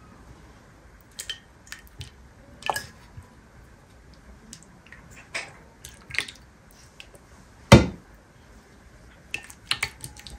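Scattered clicks and knocks of cooking utensils and dishes being handled, with one loud knock about three-quarters of the way through.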